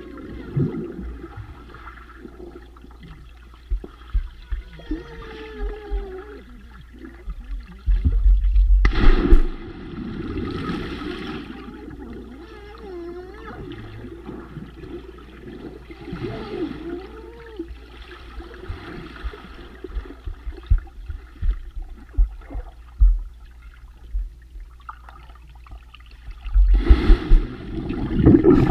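Muffled underwater sound of pool water picked up by a submerged camera: sloshing and gurgling under a low rumble, with a loud burst of splashing and bubbles about eight seconds in and another near the end, as a hand plunges into the water by the lens.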